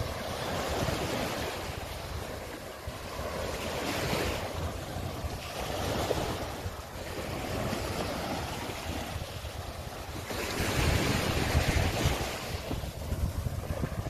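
Small ocean waves breaking and washing up a sandy shore, the surf swelling and ebbing every two seconds or so, the biggest rush near the end. Wind rumbles on the microphone underneath.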